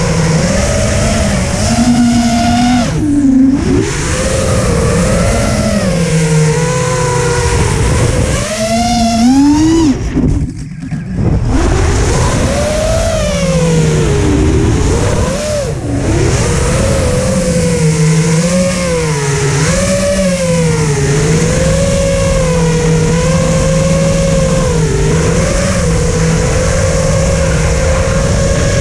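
An FPV freestyle quadcopter's brushless motors and propellers whine, the pitch rising and falling without pause as the throttle changes. Heard from the camera mounted on the quad, with air rushing over it. The whine drops away briefly at throttle cuts about three seconds in and again about ten seconds in.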